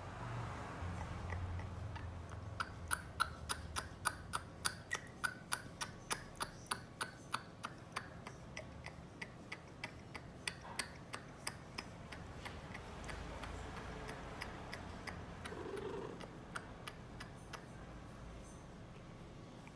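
A rapid, even series of sharp clicks, about three a second, starting a few seconds in and fading away over about ten seconds.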